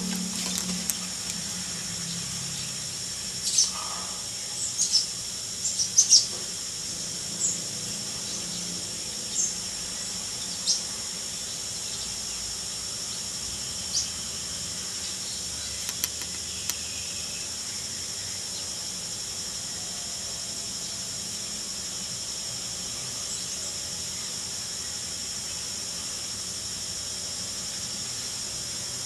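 Common tailorbird giving short, sharp, high chirps: a quick cluster in the first few seconds, then single chirps every second or two until about halfway, over a steady high-pitched insect drone.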